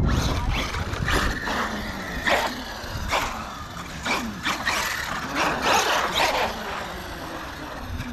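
Arrma Kraton EXB RC truck's brushless motor whining in short bursts of throttle, rising and falling in pitch, with its tyres scrubbing and its chassis knocking on the concrete ramps.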